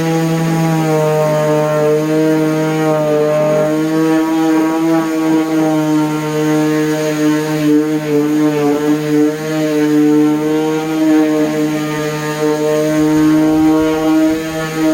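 DeWalt palm orbital sander with a 3M Xtract Cubitron II disc running against cedar wood: a steady motor hum whose pitch wavers slightly as the sander is pressed and moved over the surface.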